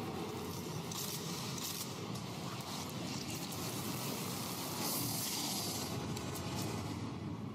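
Film soundtrack of steady rushing noise with a low rumble underneath, swelling into brighter hiss about a second in and again about five seconds in.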